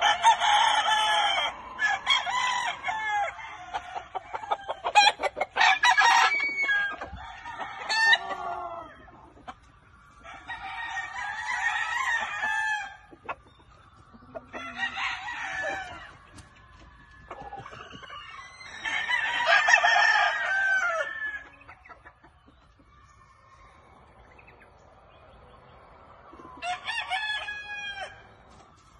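Roosters crowing again and again, in about six bouts of calls with pauses between. There is a few-second lull near the end before one more crow.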